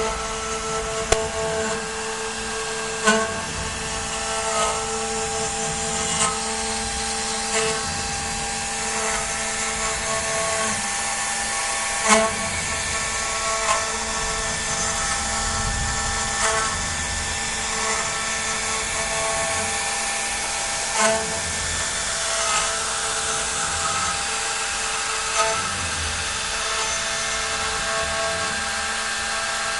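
CNC router spindle running at a steady high-pitched whine as a small end mill carves a spiral rope twist into a wooden baluster, with a brief louder rasp every few seconds as the bit bites into the wood.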